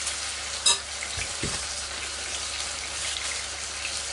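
Marinated pork loin medallions sizzling steadily in hot oil in a frying pan, with one sharp click a little over half a second in.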